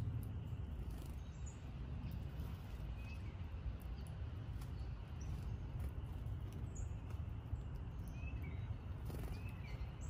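Woodland ambience: a steady low rumble with a few short, faint songbird chirps, one about three seconds in and a couple more near the end.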